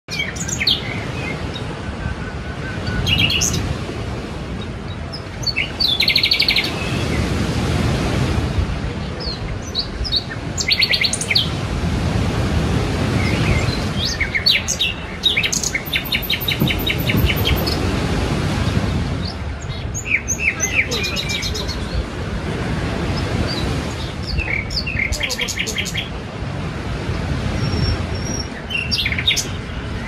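Sea waves washing ashore, a rushing sound that swells and falls back every few seconds, with small birds chirping and singing quick high trills over it, several times.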